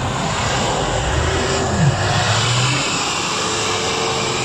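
Lifted Mitsubishi L200 pickup's engine revving hard, with its tyres spinning and throwing snow as it tries to climb a snowy bank; the revs rise and fall about two seconds in. The truck is failing to get up the slope.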